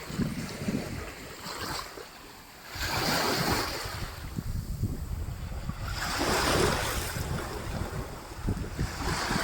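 Ocean waves breaking and washing in, with two louder surges about three seconds apart, and wind buffeting the microphone with a low rumble.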